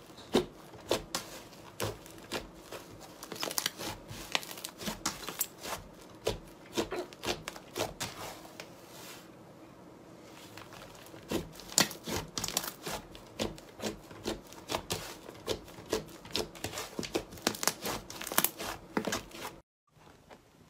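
Pink slime kneaded and stretched by hand, giving off a dense, irregular run of sticky pops, clicks and crackles. There is a quieter stretch about halfway through, and the sound cuts off abruptly near the end.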